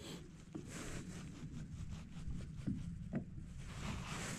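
Faint, steady low wind-and-water noise on open water, with a few soft knocks.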